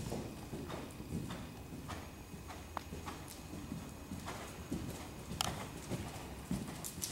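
Horse trotting on soft sand arena footing: steady hoofbeats in a two-beat rhythm, dull thuds about three a second.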